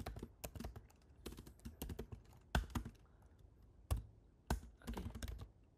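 Typing on a computer keyboard: irregular keystrokes at an uneven pace, with a few louder key presses.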